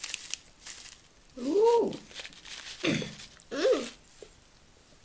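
A small plastic sweet packet crinkling as it is handled and torn open, with two short vocal sounds that rise then fall in pitch, the first about one and a half seconds in and louder than the crinkling.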